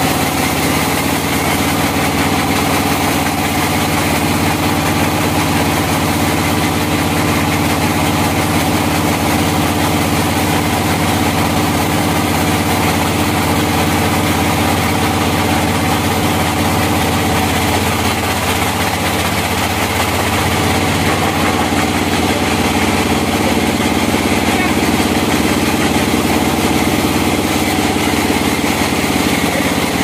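Log band sawmill running steadily under power, its blade cutting through an old hardwood log.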